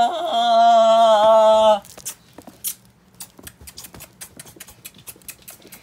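A voice holding one long, steady drawn-out note for the first couple of seconds, then light, irregular clicks and rustles of hands rummaging through plush toys in a storage box.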